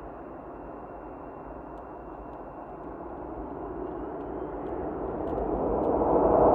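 Jet noise from a Swiss Air Force F/A-18 Hornet's twin engines: a steady rushing sound that grows steadily louder from about halfway through as the jet approaches.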